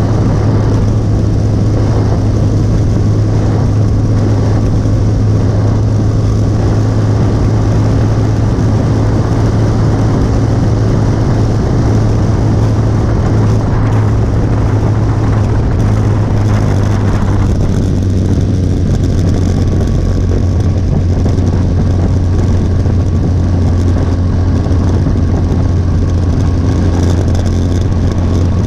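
Motorcycle engine running steadily at cruising speed, with wind and road noise. About two-thirds of the way through, the engine note drops a little and the higher noise eases.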